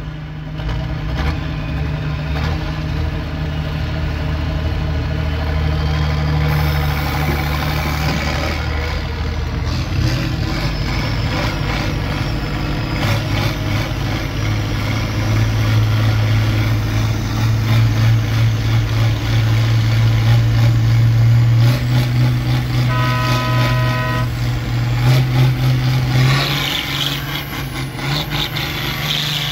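Tractor engine running steadily, heard from inside a cab; partway through its note climbs and it gets louder as it works harder, then settles back. A short horn-like beep sounds about three-quarters of the way through.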